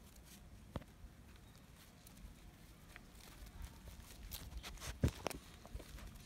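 Mudhol hound puppies' paws pattering and scuffing on dry, stony dirt as they run about, with scattered light clicks, getting busier in the second half, and a sharper knock about five seconds in.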